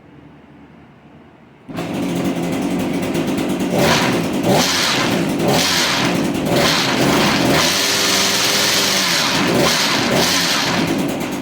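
Echo PPT2620H pole saw's two-stroke engine, coming in abruptly about two seconds in, revved in a series of short throttle blips and then held at high revs for about three seconds before dropping back. The throttle is worked to check whether the drive sprocket turns.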